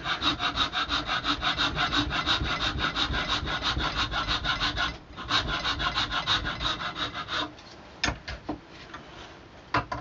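Fine-cut hand file rasping back and forth across an antler-and-wood walking-stick joint, about five quick strokes a second. The strokes break off briefly about five seconds in, resume, and stop about two and a half seconds later, followed by two short knocks near the end.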